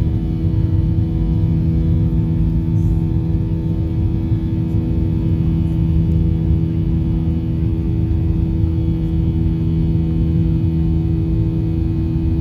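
Airliner's engines at takeoff power, heard from inside the passenger cabin during the climb-out: a steady, loud drone with a strong low hum and rumble.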